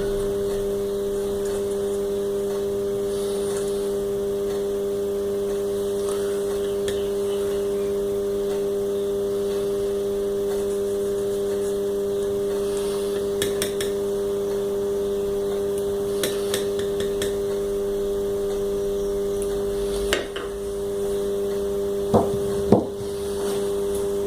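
A few light clicks and knocks from small parts being handled on a workbench, over a steady electrical-sounding hum.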